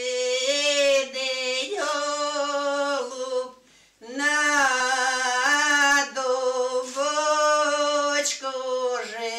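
Elderly women singing a slow Ukrainian folk song together without accompaniment, holding long drawn-out notes, with a short pause for breath about three and a half seconds in.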